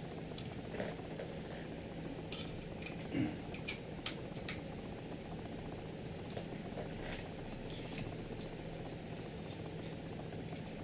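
Small clicks and light knocks of hands handling the plastic and metal print-head carriage of a Creality CR-10 3D printer, the loudest knock about three seconds in, over a steady faint hum.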